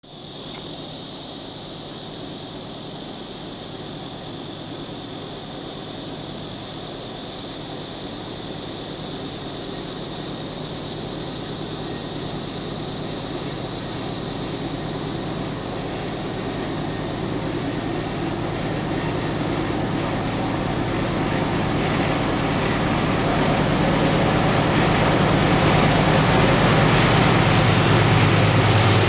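An approaching freight train's diesel locomotives, their low engine rumble growing steadily louder in the second half as they come close. A high, steady shrill sound runs through the first half and fades out about halfway.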